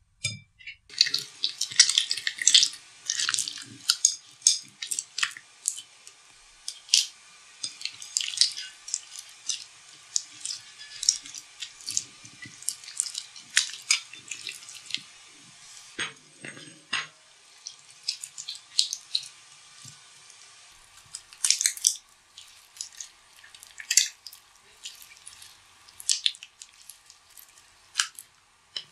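Hands squishing and kneading sticky white fluffy slime, giving a dense run of wet crackles and small popping clicks.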